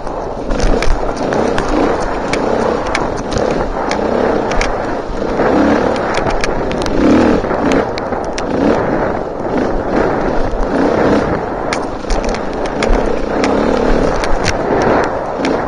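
Enduro dirt bike running along a rough trail, its engine rising and falling as the rider works the throttle, with frequent sharp knocks and rattles from the bike over bumps.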